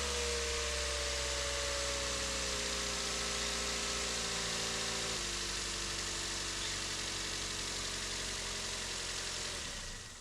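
2017 Toyota Yaris 1.5-litre four-cylinder engine idling just after being started on a freshly cleaned throttle body. Its pitch slowly falls, with a small step down about halfway through, as the idle settles, and it runs smoothly with no stumble. The sound falls away at the very end.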